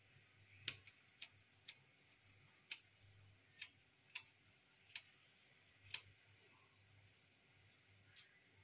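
Kitchen scissors snipping through the shells of raw prawns along their backs: about ten sharp, irregularly spaced snips, the loudest a little under a second in.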